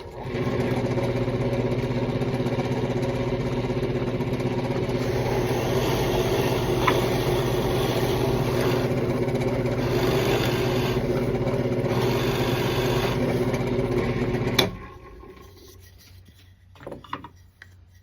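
An electric woodworking power tool running steadily for about fifteen seconds, with a louder hiss coming and going over its hum, then switched off with a sharp click and winding down quickly. A few faint knocks follow near the end.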